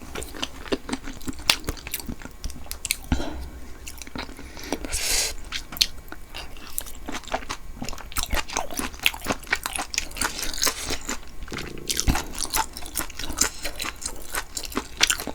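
Close-up chewing and biting of spicy beef-intestine tteokbokki, with a steady run of wet mouth clicks and smacks.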